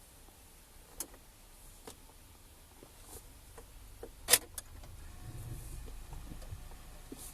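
Clicks from a car's controls in the cabin, with one sharp, loud click about four seconds in, then a low hum that starts about five seconds in as the car's electrics are switched on.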